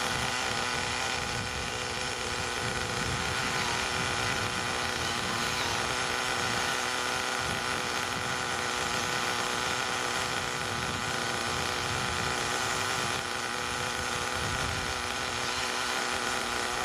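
Small 5.9 cc nitro engine of an HPI Savage XL 5.9 running steadily on the stand during its break-in, a constant high buzzing whine.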